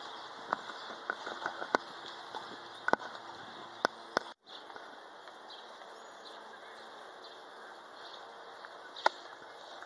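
Outdoor street ambience: a steady background rush with a few sharp clicks and taps scattered irregularly through it. The sound cuts out completely for a moment about four and a half seconds in.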